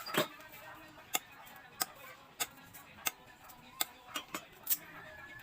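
Sugarcane being bitten and chewed: a run of about nine sharp crunches, roughly one every half to three-quarters of a second, as the fibrous stalk cracks between the teeth.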